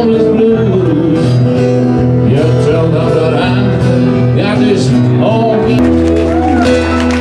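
Live blues: a harmonica played through a cupped hand-held microphone, with bending, held notes over acoustic guitar and piano accompaniment.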